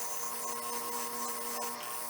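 Power-tool wire wheel running steadily against a rusty hatchet head, a motor hum under a dense high scrubbing hiss as the rust is brushed off.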